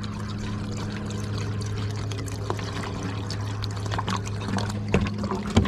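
RV antifreeze pouring from a plastic gallon jug into a boat's freshwater tank fill, over a steady low hum.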